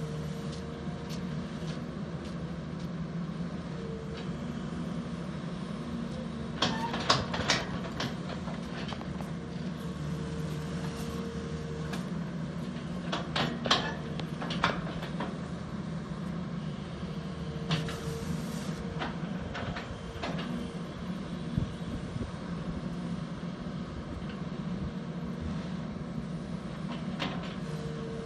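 Volvo EC210BL long-reach excavator's diesel engine running steadily under load while the arm trims the slope. A higher whine comes and goes, and a few sharp clanks sound about seven and fourteen seconds in.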